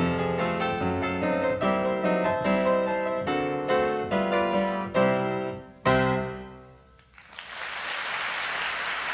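Solo piano music playing a busy run of notes, ending on a last loud note about six seconds in that dies away. About a second later a steady rushing hiss comes in.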